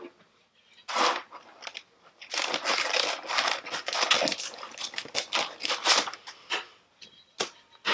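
Packaging crinkling and tearing in irregular bursts as a squishy toy is unwrapped, with a busy stretch of rustling through the middle.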